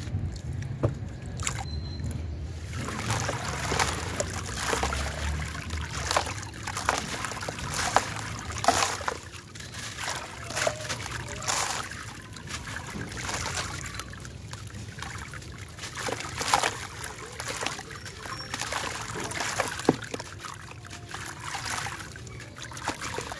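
A crumbly sand-cement chunk being crushed by hand, gritty crackles and crunches with the loose grit trickling and splashing into a tub of water. It starts a few seconds in and goes on in an irregular run.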